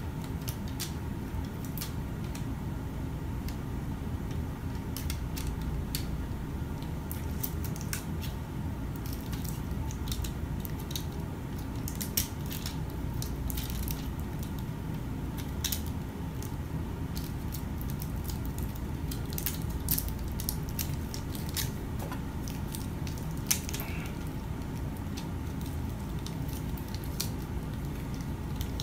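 Steady low background rumble, with a faint steady hum and scattered small clicks and crackles throughout; a few sharper ticks stand out.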